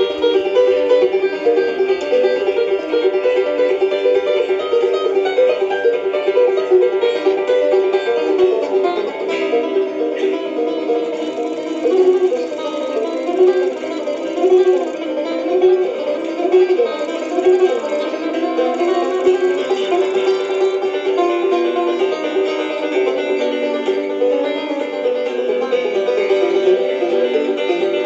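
Resonator banjo and acoustic guitar playing an instrumental duet of fast picked notes, with quick up-and-down melodic runs midway.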